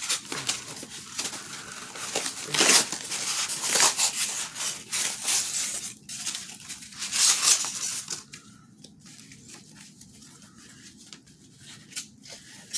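Packaging being torn open and crinkled by hand for about eight seconds, then quieter handling with a few light clicks.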